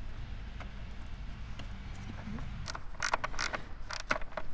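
Small clicks and scrapes of battery cable lugs and terminal hardware being handled as positive cables are reconnected to a battery. The clicks come in a loose run starting about three seconds in, over a faint low steady rumble.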